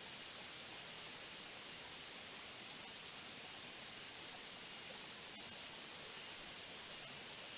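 Steady rushing hiss of water running over the rocks of a small waterfall, even and unchanging, with a faint constant high whine above it.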